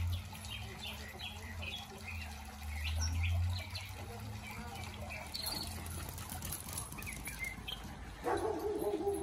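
Small garden birds chirping in short, repeated calls over a low rumble on the microphone. Near the end a dog starts a wavering, whining call that rises and falls in pitch.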